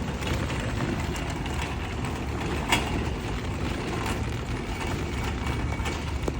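Steady low rumble of vehicle noise, with a single sharp click a little under three seconds in.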